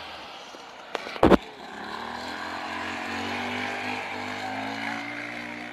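A distant motor vehicle engine revving, its pitch rising and then holding steady, with a sharp, very loud bang about a second in.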